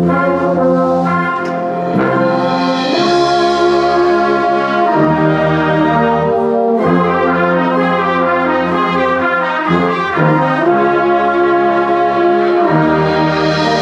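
Brass band with flutes and clarinets playing slow held chords that change every two or three seconds, trumpets and trombones over tubas and a sousaphone.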